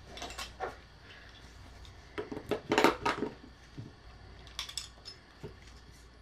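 Handling noises: a string of light clicks, knocks and clinks of small hard objects being moved, thickest about two to three seconds in.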